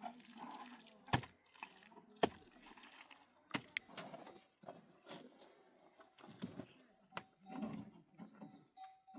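Several sharp knocks at irregular intervals, the loudest two about a second apart near the start, over a faint low murmur.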